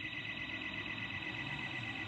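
Burglar alarm sounding continuously: a steady high-pitched electronic tone with a fast, even pulse.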